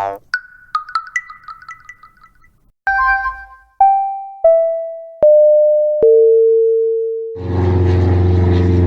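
A run of short electronic notification tones played back to back. First comes a quick flurry of high plinking notes. Then four bell-like notes step down in pitch, each ringing out, and a buzzy sustained tone holds for about three seconds near the end.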